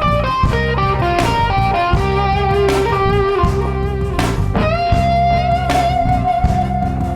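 Background music: a blues-rock instrumental with an electric guitar playing a lead line over a bass and drum groove, holding one long note from a little past halfway.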